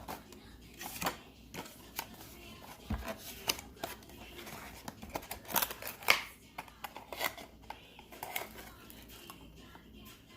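Irregular small clicks and taps of perfume bottles and their caps or packaging being handled, the loudest about six seconds in.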